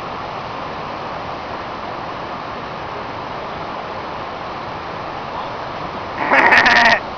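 Steady rushing noise of a waterfall. Near the end a person lets out a loud yell.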